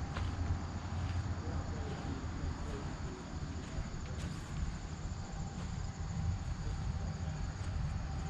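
Outdoor ambience: a steady low rumble with a faint high, continuous cricket trill and faint ticks.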